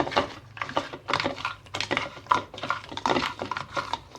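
Raw crab pieces being mixed by hand with masala in a bowl for marinating: hard shell pieces click and knock against each other and the bowl in quick, irregular taps.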